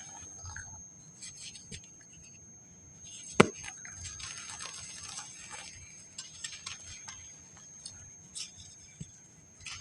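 Dry packed sand crumbling and crunching, with grainy crackles and bits falling in irregular spells and one sharp crack about three and a half seconds in. A faint steady high whine runs underneath.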